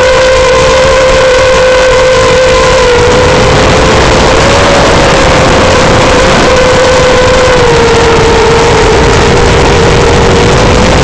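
Loud whine of the iFlight Nazgul5 5-inch FPV quadcopter's brushless motors and propellers in flight, over a hiss of rushing air. The pitch holds fairly steady, sags slightly in the later part, then starts to climb near the end as the throttle comes up.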